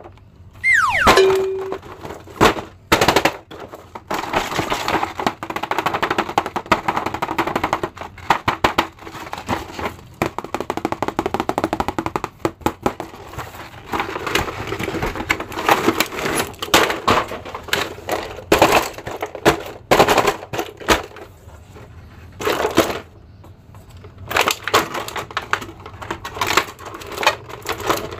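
Cardboard toy box and clear plastic blister tray being handled and opened: a long run of irregular clicks, knocks and plastic rustling, with a brief falling tone about a second in.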